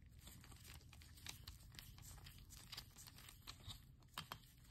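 Near silence with faint handling noise: soft rustling and a few scattered small clicks as gloved hands turn a small hex key to snug up the screw on a pistol's laser battery tray.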